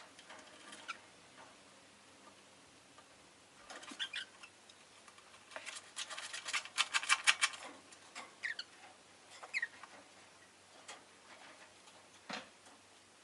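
Rosy-faced lovebirds giving scattered short chirps, with a run of rapid clicks about six seconds in.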